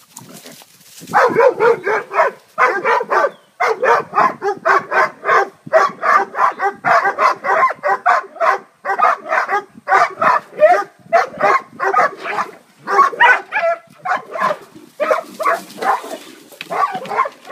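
Hog dogs baying: a fast, unbroken run of loud barks, starting about a second in, as the dogs hold a hog at bay.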